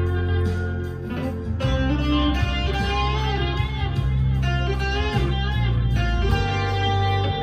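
Harley Benton SC Custom II electric guitar played through an amp's crunch channel with mild overdrive: a lead line of single notes with string bends and vibrato.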